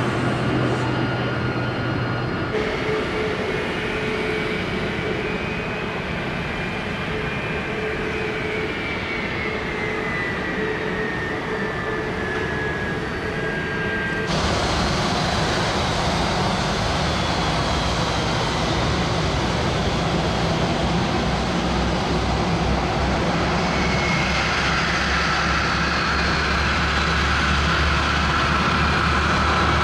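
Jet airliner engines running, a steady rush with a high turbine whine that slowly falls in pitch. The sound changes abruptly twice, about two seconds in and halfway through.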